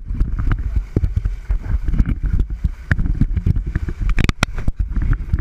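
Sportfishing boat under way: wind rumbling on the camera's microphone and water splashing and rushing along the hull, with repeated sharp knocks.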